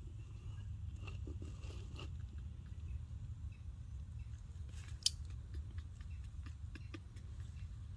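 Faint clicks and crunches of a baby monkey chewing hand-fed longan fruit, with one sharper click about five seconds in, over a steady low rumble.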